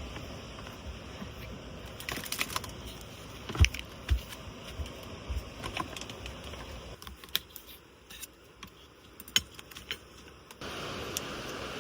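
Scattered clicks and taps with a few dull knocks, as of objects being handled, over a steady background hiss. The loudest knocks come about three and a half to four seconds in, and the hiss drops out for a few seconds in the second half.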